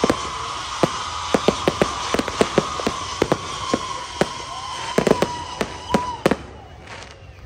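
Aerial fireworks crackling and popping in a rapid, irregular string of sharp cracks, over a hiss and a steady high tone that stops about six seconds in. The crackle thins out near the end.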